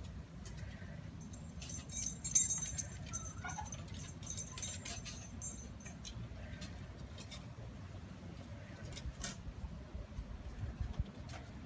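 A small dog's collar tags jingling and its claws clicking on wooden stair treads as it climbs the steps. The jingling is strongest about two seconds in, with scattered taps of claws on wood throughout.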